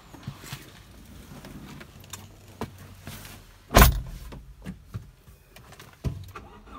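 Scattered clicks and knocks inside a car cabin, with one loud thump just under four seconds in.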